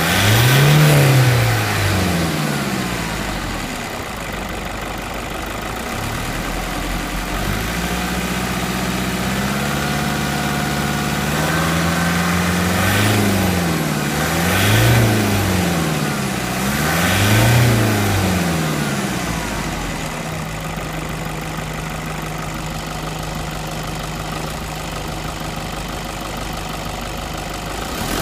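Toyota 2KD-FTV 2.5 litre four-cylinder turbo diesel running and being revved. The revs are held up for a few seconds, then blipped three times in quick succession, before settling to a steady idle for the last several seconds.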